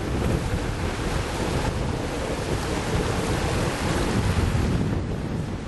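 Wind buffeting the microphone over the steady rush of sea water and waves, aboard a sailing yacht under way.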